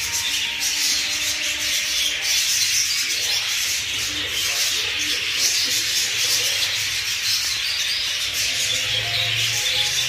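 A flock of budgerigars chattering together in an aviary: a steady, dense mass of overlapping chirps and warbles with no pauses.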